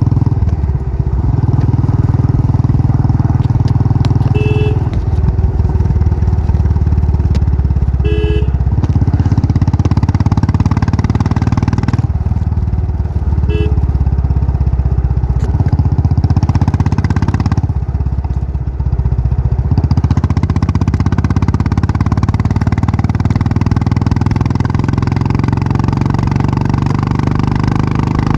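Royal Enfield Bullet's single-cylinder engine running under way at low speed, its note dipping a couple of times as the throttle eases. Three short horn beeps sound over it.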